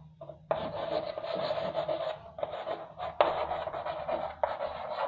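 Chalk scraping on a chalkboard as a word is written by hand. It comes in a run of strokes with a few short breaks, starting about half a second in.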